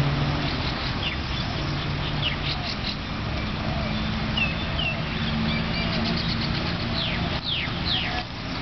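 Small birds chirping: many short, high, quickly falling calls, coming thicker near the end, over a steady low background hum.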